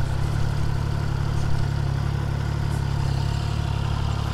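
Triumph Trident 660's inline three-cylinder engine idling steadily.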